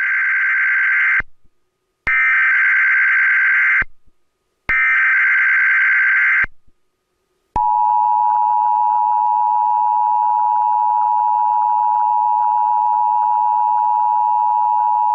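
Emergency Alert System SAME header for a Required Monthly Test: three identical bursts of screechy digital data tones, each about 1.7 s with short gaps between them. About 7.5 s in, the steady two-tone EAS attention signal (853 and 960 Hz) starts and holds.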